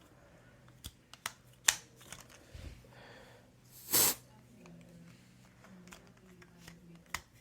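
Handling noises during a smoke-detector test: several sharp clicks in the first two seconds, then a short, loud hissing puff about four seconds in, over a faint low hum.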